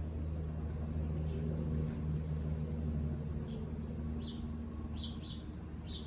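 Several short, high bird chirps, most of them in the second half, over a steady low rumble.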